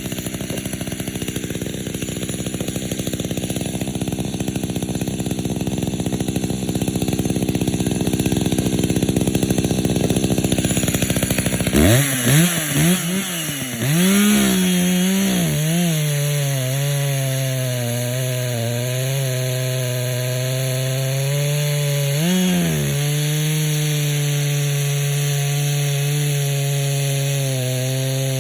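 Echo CS-590 two-stroke chainsaw running hard, its engine set rich. About twelve seconds in the revs swoop up and down a few times, then hold high with the pitch dipping and recovering under load, as when cutting wood.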